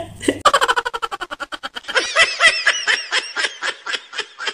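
Laughter: a quick run of short giggles, then a series of high-pitched laughs at about three or four a second.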